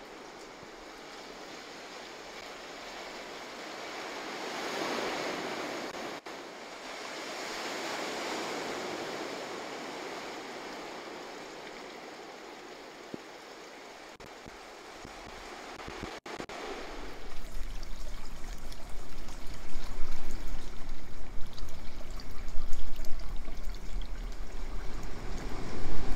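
Sea surf breaking on a rocky shore, a steady wash that swells and eases in slow waves. About two-thirds through, it gives way to a louder, rougher rush with a heavy low rumble.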